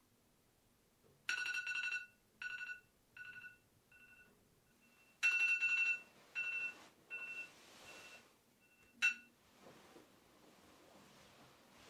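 Mobile phone ringing with a high electronic tone: two loud rings, each trailing off in fading, echoing repeats. A short sharp click follows about nine seconds in.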